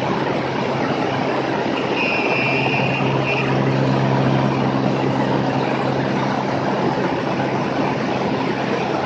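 Beechcraft S35 Bonanza's six-cylinder Continental engine and propeller droning steadily at climb power just after takeoff, under heavy rushing air noise. A brief high steady tone sounds about two seconds in and lasts about a second and a half.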